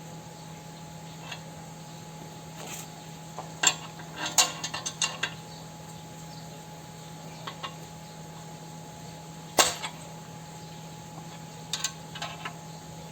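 Sharp metallic clinks and clicks of steel tools working a three-jaw puller on a bicycle crank arm, coming in scattered strikes with a quick run of clicks about four seconds in and the loudest single clink past the middle. A steady low hum runs underneath.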